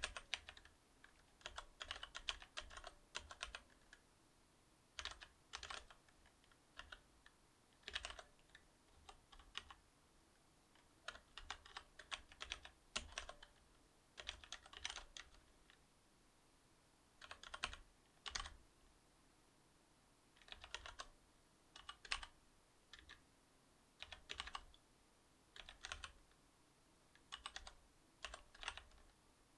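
Typing on a Cherry MX Board 8.0 mechanical keyboard with Cherry MX Silver linear switches: quick runs of soft keystrokes, each run lasting about half a second to a second, separated by short pauses.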